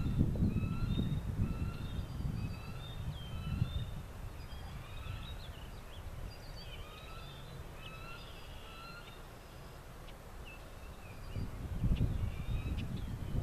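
Several birds chirping and calling in short whistled notes, with wind gusting and rumbling on the microphone at the start and again near the end.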